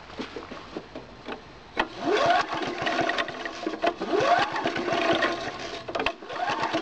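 A walk-behind lawn mower's small engine is cranked over with the recoil pull-starter several times, each pull a rising whir, with the spark plug out and grounded to the cylinder head for a spark test, so the engine spins freely without firing.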